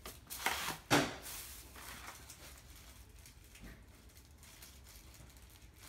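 White plastic corner-shelf trays are handled and slid onto a stainless steel pole. Light rustles and clicks come first, then a sharp plastic knock about a second in, followed by faint handling noise.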